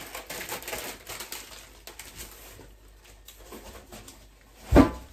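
Plastic food packaging rustling and crinkling as it is handled, quieter in the middle, then a brief loud low thump near the end.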